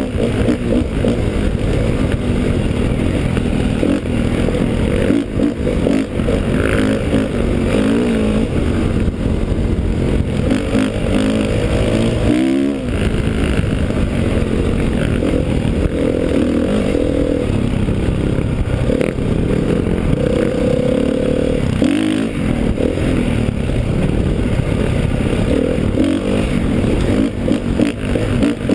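Dirt bike engine running under load on a rough trail, the revs rising and falling with the throttle. About twelve seconds in the revs drop briefly and climb again.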